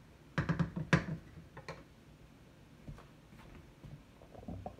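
A cooking utensil clattering against a pot while ingredients are mixed: a quick run of sharp knocks in the first second, then a few scattered lighter clicks.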